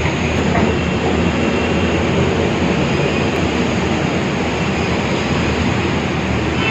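Steady, loud mechanical rumble and hiss with a low hum underneath, unbroken throughout, in a metro station.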